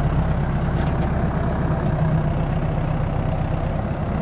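Tractor engine running at a steady speed, a low even hum.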